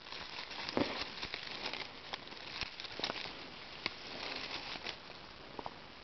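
Dry fallen leaves and thin twigs in leaf litter rustling and crackling with many small irregular snaps as someone moves through them.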